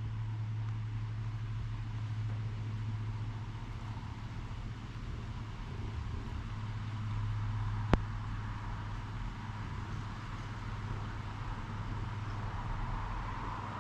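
A motor vehicle running steadily nearby, heard as a constant low hum. A single sharp click comes about eight seconds in.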